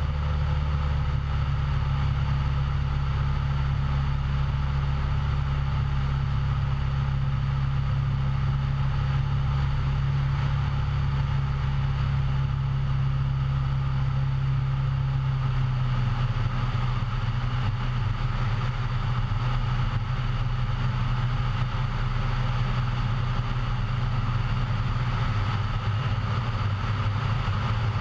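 Cessna 172's piston engine and propeller droning steadily in flight, heard from a camera mounted outside the aircraft with air rushing past. The low tone of the drone shifts slightly about halfway through.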